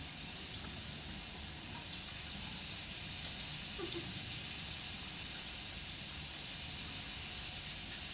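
A large choir making a rainstorm with their hands: a steady rain-like hiss from many hands at once.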